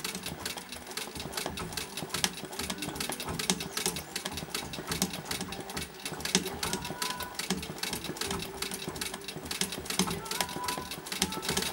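Vintage treadle-powered straight-stitch sewing machine running steadily, its needle and mechanism clicking rapidly, while sewing free-motion embroidery stitches.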